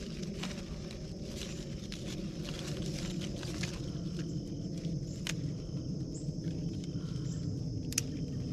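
Leaves rustling and a few sharp snips of scissors cutting hardy kiwi fruit from the vine, over a steady low background noise and a faint steady high tone.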